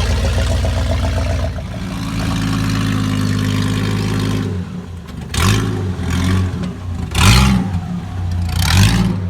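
A truck engine running steadily, then revved briefly three times in the last four seconds, each rev rising and falling in pitch.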